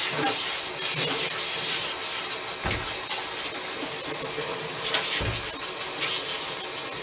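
Handheld shower sprayer running water onto a wet dog's coat in a bathtub, a steady hiss of spray, with two dull low thumps partway through.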